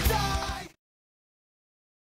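Background music fading and cutting off abruptly under a second in.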